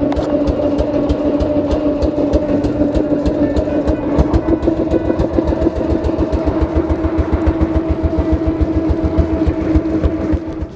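Fishing boat's engine running steadily, with a fast, even throb and a constant hum.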